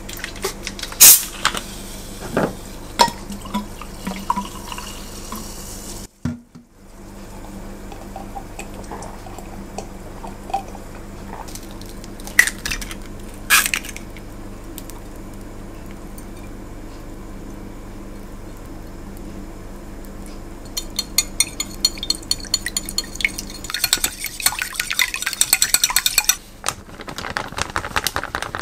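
Food prep in a glass bowl: scattered clinks of glassware and liquid being poured, over a steady low hum. Then rapid, continuous clicking of a utensil against the glass bowl for several seconds near the end, as egg batter is beaten.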